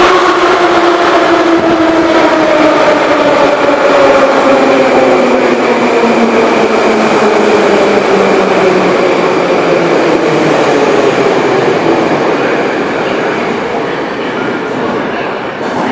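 Moscow Metro 81-717.6 subway train running, its whine of several tones falling steadily in pitch over a loud rumble as the train slows down. The sound eases off near the end.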